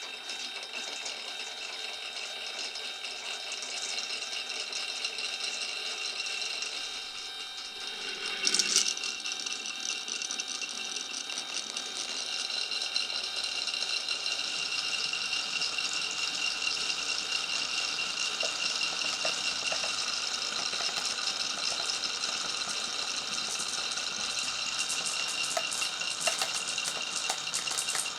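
Marbles rolling along a wooden and clear-plastic marble run: a steady rolling rattle, with a louder knock about eight seconds in and a run of quick clicks near the end.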